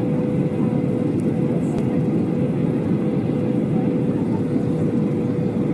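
Jet airliner cabin noise heard from a window seat: the steady roar of the underwing turbofan engine and airflow, with a constant hum running through it.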